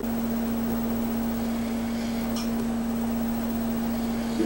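A steady machine hum at one low pitch over an even hiss, starting abruptly; a brief click sounds near the end.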